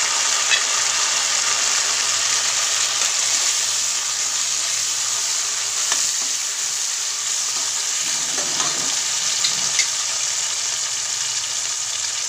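Chopped tomatoes frying in hot oil with fried onion and garlic in a metal kadhai: a steady sizzle. A ladle stirs through it, clicking against the pan a few times.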